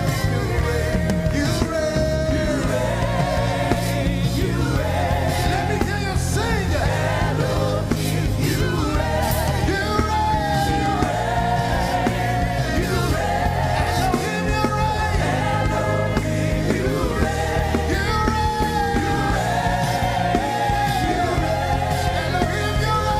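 Worship music: voices singing long, wavering held notes over a band with a steady bass line.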